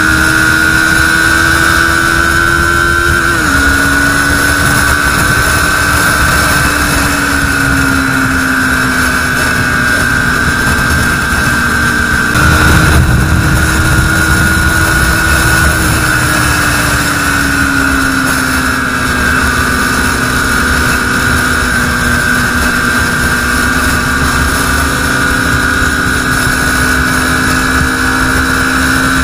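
KTM RC 390 single-cylinder engine heard from the rider's seat at highway speed, with heavy wind rush on the camera microphone. Its steady drone drops in pitch at an upshift about three and a half seconds in, jumps up with a louder burst around twelve seconds, then eases down in pitch as the bike slows.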